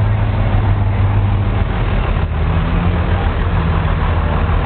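Cummins diesel pickup engine running loud and steady through its exhaust stacks, its note stepping up a little about halfway through.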